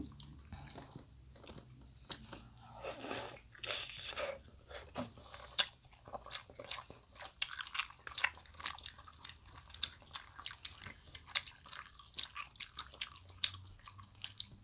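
Close-miked chewing of Korean fish cake (eomuk) sheets: a dense, irregular run of quick mouth clicks and smacks, several a second.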